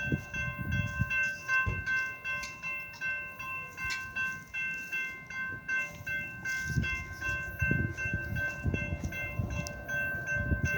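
Railroad grade-crossing warning bell ringing steadily with a fast pulsing clang as a slow CSX freight train approaches. Irregular gusts of wind buffet the microphone.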